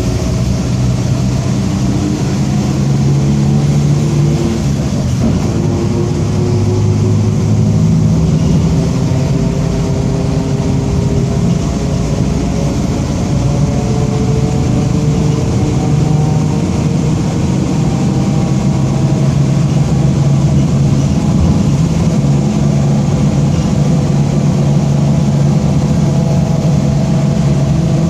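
Mercedes-Benz OF-1722M bus under way, its engine and drivetrain running with a growling whine from the differential. The pitch climbs slowly over the first half as the bus gathers speed, then holds steady.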